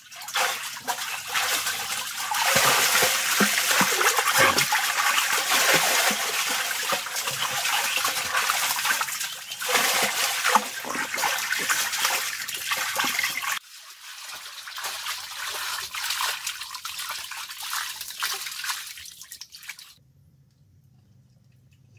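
Water splashing and churning as a person swims through a pool. The splashing drops suddenly about two-thirds of the way through, goes on more softly, then cuts off near the end.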